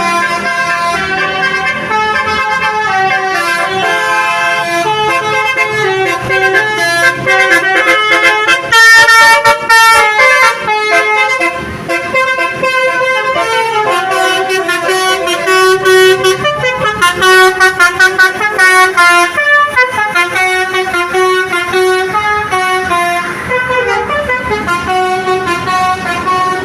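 Basuri 'telolet' multi-tone air horn playing a tune of stepped notes, several tones sounding together, loud throughout. Twice the notes break into fast staccato toots, about a third of the way in and again past the middle.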